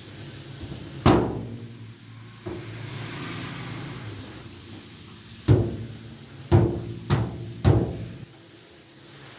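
A washing machine's cabinet being banged on: five loud bangs, each with a short ringing decay. One comes about a second in, and four follow in quick succession in the second half.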